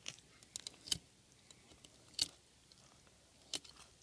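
Fillet knife cutting along a walleye's rib cage: a handful of faint, sharp clicks at irregular intervals.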